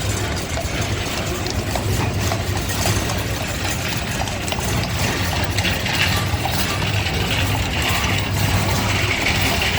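Parade horses and horse-drawn wagons passing on pavement: a continuous clatter of hooves and wheels over a steady low rumble.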